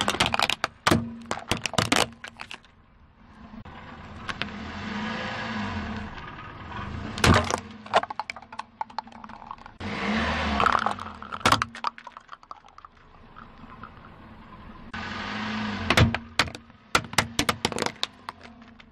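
Car tyre rolling over and crushing small brittle cups and plastic toys on asphalt: clusters of sharp cracks and snaps, between stretches of tyre noise on gritty asphalt and a low engine hum.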